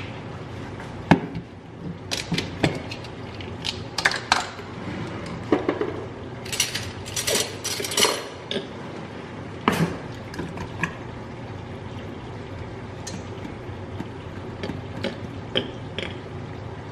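Kitchen prep at a counter: scattered clinks and knocks of dishes, containers and utensils being handled, busiest in the first ten seconds and sparser after, over a steady low hum.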